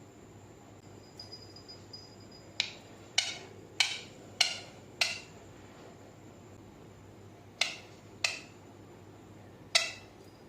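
Ringneck parrot imitating a knocking sound with its voice: eight sharp knocks, a run of five about every half second, then two more and a last one near the end.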